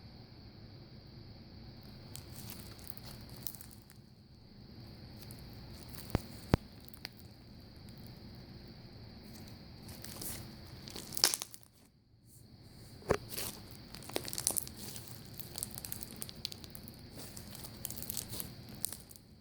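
Crunchy slime packed with clear filler beads being squeezed and worked by hand: continuous crackling and crunching, with several sharp, louder clicks and pops.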